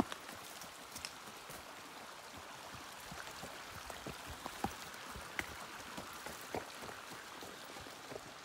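Mountain creek running and babbling steadily, with scattered light clicks and ticks over it.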